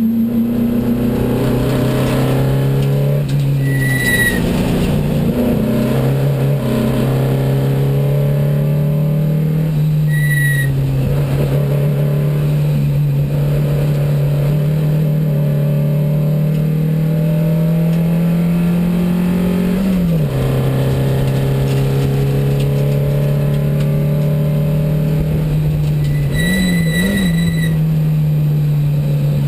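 Race engine of a 1972 Porsche 914 IMSA widebody (2270 cc), heard from inside the stripped cockpit, running hard under load. Its pitch climbs slowly through a long pull, drops sharply at an upshift about two-thirds of the way through, and dips and rises quickly near the end. Brief high-pitched tones sound three times.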